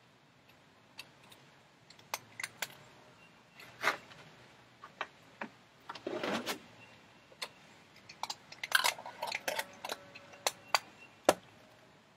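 Light clicks and knocks of a plastic water jug and a glass mason jar being handled and set down, with a short rustle about six seconds in and a quick run of clicks near the end as the jar's lid is handled.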